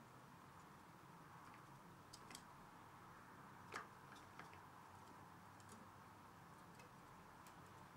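Faint, irregular clicks of a Eurasian red squirrel cracking and gnawing its food, with one louder crack about halfway through.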